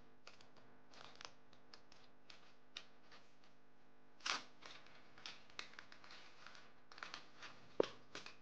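Faint rustling and soft taps of hands handling a phone and its cardboard box packaging, with slightly louder rustles about four seconds in and near the end.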